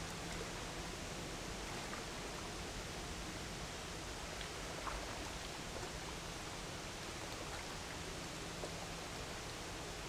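Steady outdoor rushing noise with a faint low engine hum underneath from a large container ship and its escort tug moving slowly on the river.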